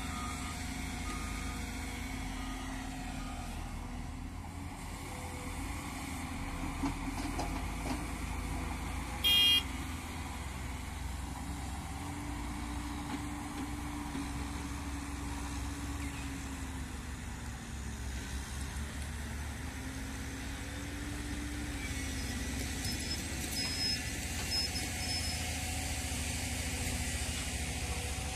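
Caterpillar motor grader's diesel engine running as it grades the field, its pitch rising and falling with the load. A short, loud high beep cuts in about nine seconds in.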